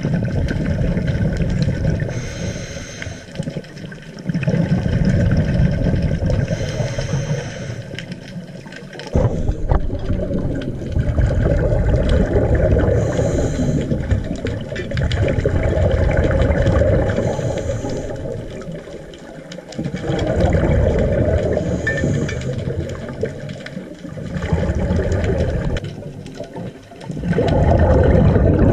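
Scuba divers breathing through regulators underwater: a short hiss on each inhale, then a long low rumble of exhaled bubbles, the cycle repeating every few seconds.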